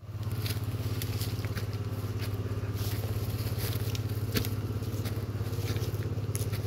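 Footsteps crunching and crackling through dry leaf litter, with one sharper snap a little past the middle, over a steady low drone.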